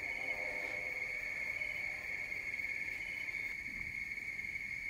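Crickets calling at night in one steady, unbroken high-pitched drone.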